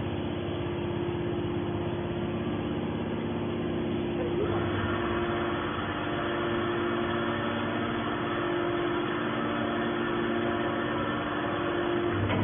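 Horizontal hydraulic metal baler running: a steady mechanical hum with a few fixed tones from its motor and pump, which takes on a brighter, harsher edge about four and a half seconds in.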